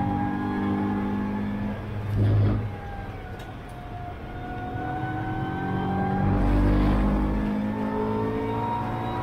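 Track car's engine heard from inside the cockpit. Its pitch falls as the driver lifts off and brakes for a corner, then rises again under full throttle. Deep low rumbles come about two seconds in and again around seven seconds in.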